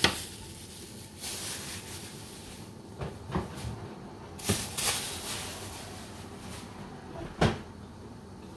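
Kitchen clatter: several separate knocks and clunks of cupboard, lid or utensils, the sharpest near the end, over the faint hiss of a pan of beef simmering in white wine.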